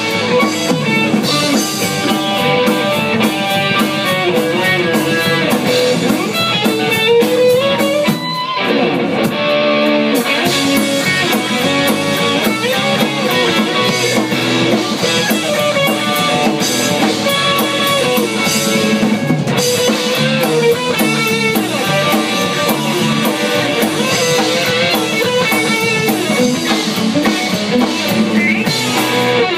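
Live instrumental rock: an electric guitar plays lead lines with sliding pitch bends over a drum kit, loud and continuous, with a brief dip in loudness about eight seconds in.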